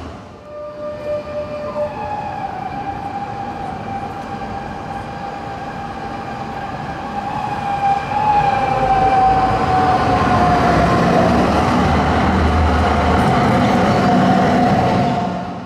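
Tram 2000 tram approaching and passing close by on street track, with a steady high whistling tone that falls slightly in pitch and a low rumble that grows louder about halfway through as it nears.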